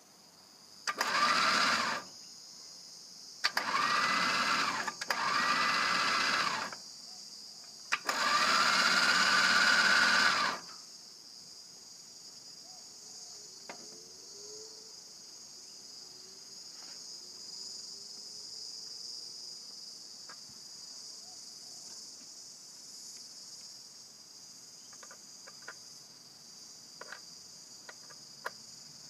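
Sherpa 4x4 electric winch motor running in four short bursts with a whine, the first three about one to one and a half seconds each and the last about two and a half seconds. A steady high chirring of insects goes on throughout.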